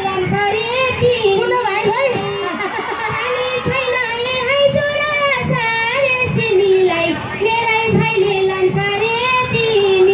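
A woman singing a Nepali dohori folk song into a microphone over a PA system, in long held notes that bend up and down, with short low beats underneath.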